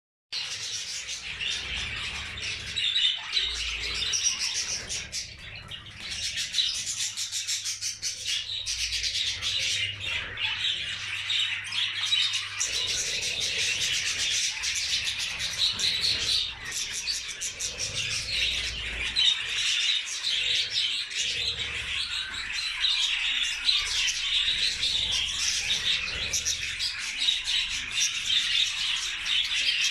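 A colony of budgerigars chattering and chirping together in a dense, continuous warble.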